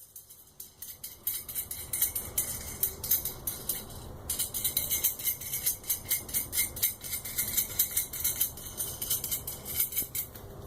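An M10 steel nut is being spun down an M10 threaded rod, with the washers on the rod jingling and clinking in rapid, uneven clicks.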